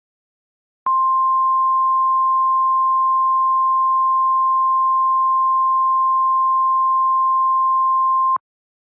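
NOAA Weather Radio / Emergency Alert System 1050 Hz warning alarm tone. It is a single steady high-pitched beep that starts abruptly about a second in, holds unchanged for about seven and a half seconds, and cuts off sharply. It is the attention signal that announces a warning broadcast.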